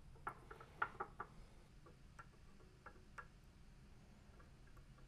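A few light clicks and taps of small metal parts, a quick cluster about a second in and then sparser ticks, as a small circuit board fitted with header pins is handled and clamped into a helping-hands alligator clip. A faint low hum runs underneath.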